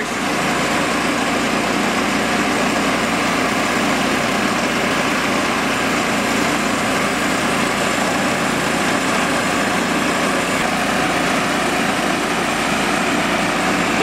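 Woodland Mills portable bandsaw mill running steadily, its engine under load as the band blade saws lengthwise through a log.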